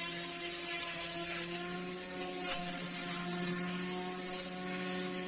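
Sewing-machine motor driving a homemade grass cutter, running steadily at speed: an even electric whine with a high hiss, and a brief tick about four seconds in.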